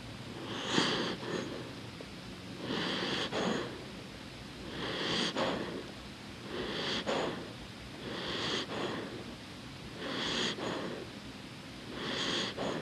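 A sleeping dog breathing slowly and audibly, seven breaths about two seconds apart.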